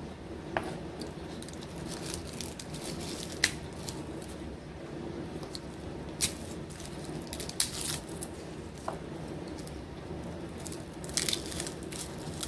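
A knife cutting chili peppers on a plastic cutting board in the first seconds, then garlic cloves being peeled by hand, their papery skins crinkling and cracking. Scattered sharp clicks and crackles over a steady low hum.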